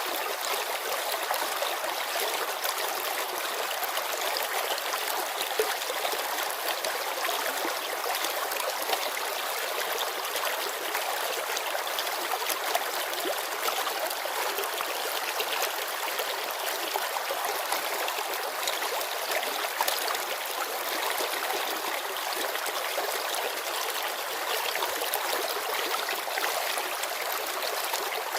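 Shallow mountain river babbling over stones: a steady, even rush of water with many small splashes and trickles.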